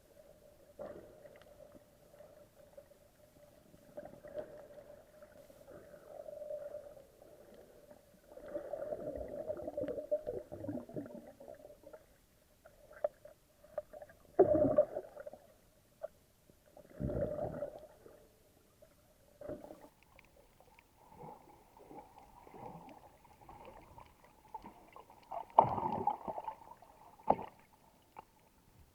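Muffled water sound as heard through a snorkeling camera's waterproof housing: irregular bursts of gurgling and sloshing over a steady hum that fades out about halfway through.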